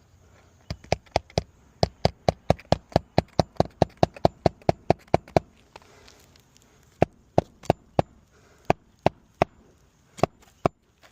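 Hammer driving a roofing nail into an asphalt shingle roof in place of a popped nail: a quick, even run of about twenty strikes, then a handful of slower, spaced blows.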